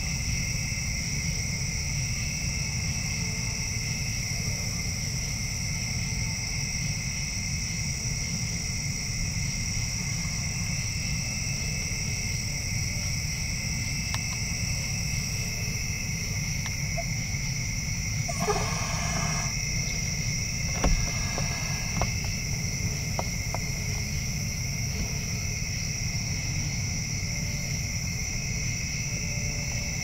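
Steady chorus of night-calling insects, a continuous high trill at two pitches over a low steady rumble. A brief rustle comes about 18 seconds in, and a sharp click about 21 seconds in is the loudest sound.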